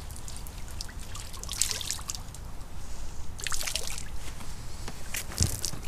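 Water trickling and splashing in three short bursts, over a steady low wind rumble on the microphone.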